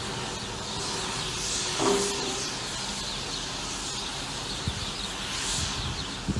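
Steady outdoor hiss with faint bird chirps. There is a brief low tone about two seconds in and a couple of soft knocks near the end.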